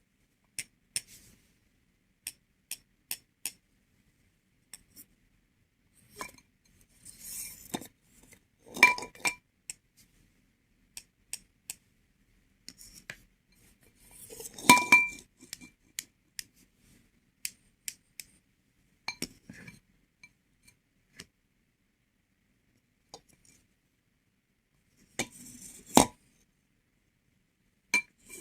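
Tableware being handled at a meal: scattered light clicks and taps, with a few louder ringing clinks about nine, fifteen and twenty-six seconds in.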